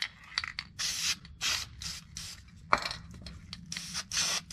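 Aerosol spray paint can sprayed in a rapid series of short hissing bursts.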